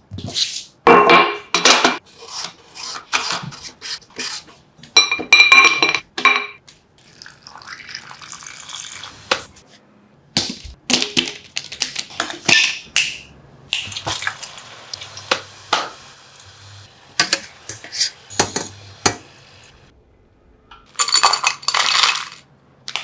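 Food-preparation sounds of potato chips being made: a run of separate clinks, knocks and taps of utensils on dishes, with stretches of water sounds. A louder rushing noise lasts about a second and a half near the end.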